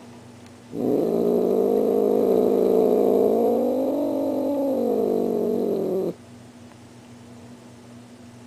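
Tortoiseshell cat giving one long, low warning growl of about five seconds. Its pitch rises a little in the middle and then sinks before it cuts off.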